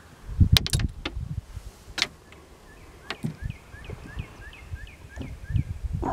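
Handling noise in a small fishing boat: a few sharp clicks and dull knocks, then single clicks. A quick run of about eight short squeaky chirps follows over roughly two seconds.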